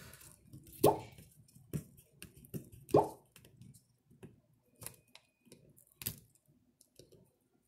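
Scattered small clicks and taps as fingers pick at a phone's battery adhesive pull tabs and handle its open frame, the loudest about a second in and again about three seconds in.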